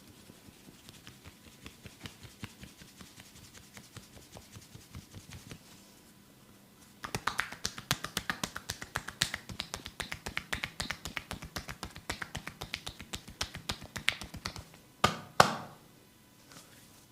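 A masseur's hands tapping and snapping rapidly on the body. The strikes are faint at first, then turn loud and sharp at several a second from about seven seconds in. They end with two loud, sharp snaps close together.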